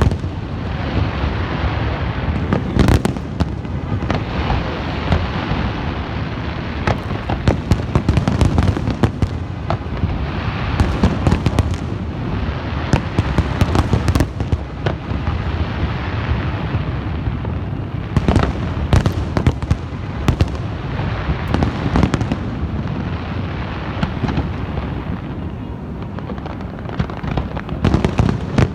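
Fireworks going off in a dense, continuous barrage: many sharp bangs and crackles one after another over a steady background of overlapping explosions.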